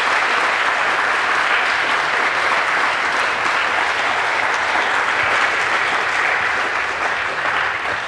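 Audience applauding: a steady round of clapping from a large crowd, starting to die down near the end.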